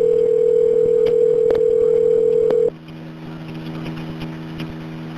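Telephone line tone, a loud steady single pitch with a few clicks over it; it cuts off about two and a half seconds in, leaving a quieter steady hum on the line.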